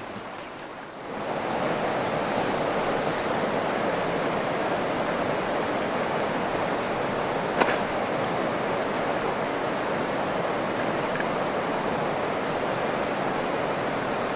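Steady rush of fast river current through a choppy riffle, coming in about a second in and holding level. One brief sharp click about halfway through.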